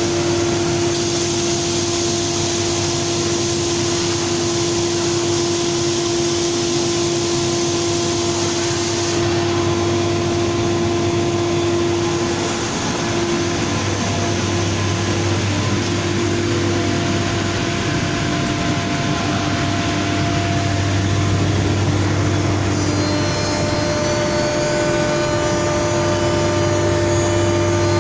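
Biesse Rover C 6.50 CNC woodworking machining centre running, its router spindle cutting wood: a steady whine over a continuous rushing noise, with a few fainter tones joining near the end.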